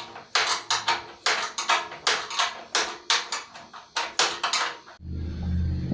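Metal clicking and clinking of a hand wrench working on steel bolts while they are tightened, a sharp click every half second or so. About five seconds in a steady low hum starts suddenly.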